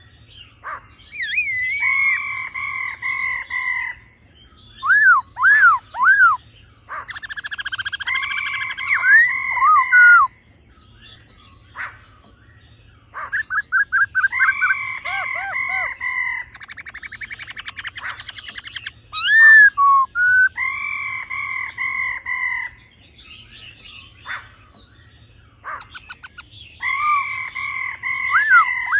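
Black-throated laughingthrushes singing, a male's song mixed with a female's calls. The song comes as repeated phrases of clear whistled notes in bouts of one to four seconds, broken by loud rising and falling whistles and a fast trill about halfway through.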